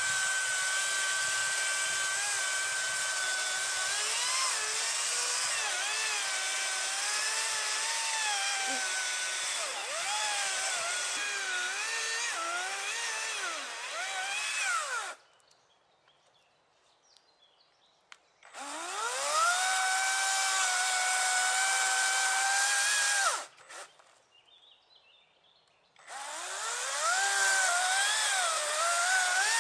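Parkside battery chainsaw's electric motor whining as it cuts into a tree trunk, its pitch dipping and wavering under load. About halfway through it stops, then spins up again with a rising whine and runs steadily. It stops briefly once more, then restarts and cuts.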